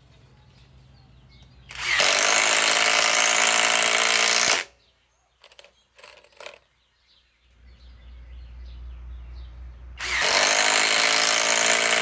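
SKIL PWR CORE 20 cordless impact driver hammering as it turns screws in a wooden block: two bursts of about three seconds each, the second starting about ten seconds in.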